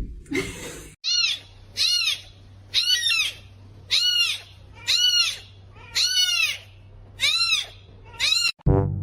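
A cat meowing over and over: about ten high, drawn-out meows, each rising and then falling in pitch, roughly one a second. Near the end the meowing cuts off and brass music starts.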